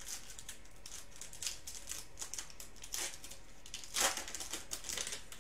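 A shiny foil wrapper of a trading-card pack being torn open and crinkled by hand: a run of quick crackles, with a louder burst about four seconds in.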